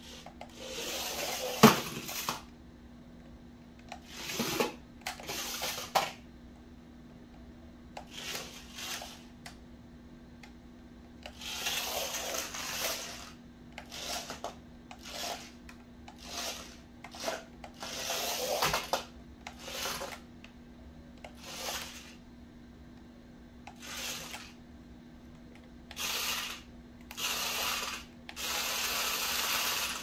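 Toy RC stunt car's small electric motors whirring in short bursts as it is driven, spun and flipped, its wheels and body rubbing and knocking on a laminate floor. A sharp knock about two seconds in is the loudest moment.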